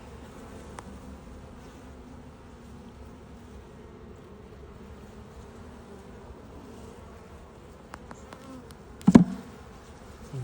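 Honeybees buzzing in a steady hum around an open hive. One sharp knock about nine seconds in, the loudest sound.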